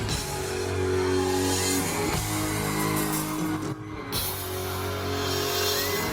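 Live band playing amplified pop-rock through a concert sound system: guitars and drums with sustained chords. The sound briefly drops away a little under four seconds in.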